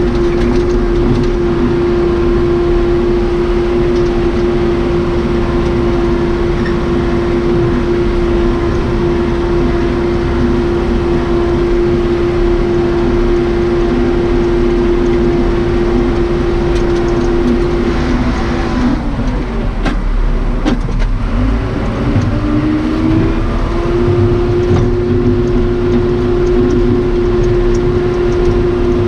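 Case 580 Super K backhoe's four-cylinder Cummins 4BT diesel running hard at a steady high pitch while pushing snow. About two-thirds of the way through, the engine note drops away and a few clunks come through, then it rises back to the same pitch.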